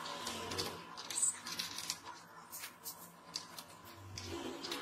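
Small metal parts being handled: a brass threaded rod and its clamp clicking and tapping in a series of short, light clicks. A faint steady tone runs through the first half.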